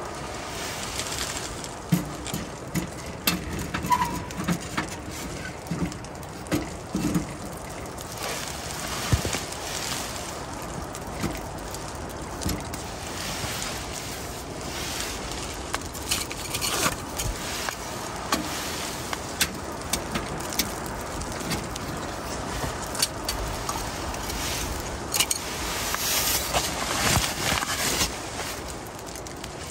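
Wood fire crackling and popping in a small tent stove, over a steady rush of wind on the tent fabric that swells into a stronger gust near the end.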